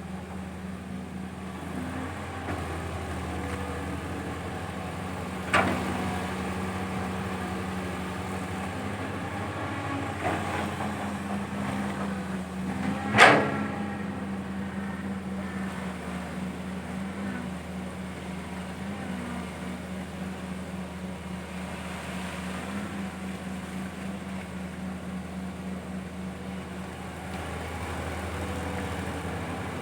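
Caterpillar 320 hydraulic excavator's diesel engine running steadily while it digs, with a sharp knock about five and a half seconds in, a fainter one near ten seconds, and the loudest knock about thirteen seconds in.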